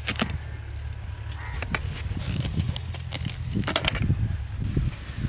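A knife cutting through a watermelon's rind and knocking on the steel plate beneath, a few sharp cracks. Birds call in the background, crows cawing and a small bird giving two pairs of short falling chirps.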